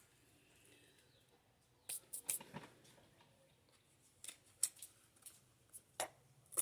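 Scattered light clicks and scrapes of hands working a chainsaw's chain, bar and wrench, starting about two seconds in, while the chain's tension is being checked after reinstalling it.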